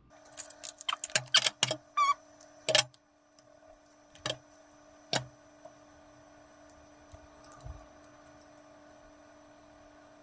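Clicks, taps and light rustling of hands handling small craft pieces on a tabletop, busiest in the first three seconds with a brief squeak among them, then two more taps. A faint steady hum sits underneath.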